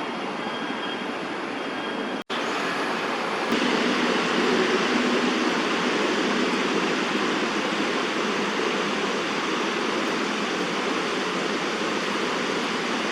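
Steady rushing outdoor noise, like wind or distant city traffic, with a brief dropout about two seconds in, after which it is a little louder.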